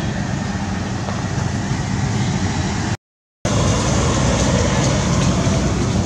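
Steady, loud rumbling noise with no clear calls or voices in it, broken by a sudden silent gap of about half a second near the middle.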